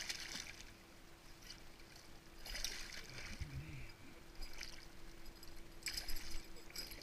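A hooked pike thrashing at the water's surface beside the boat, splashing in short bursts: one a little before halfway, a small one later, and another near the end.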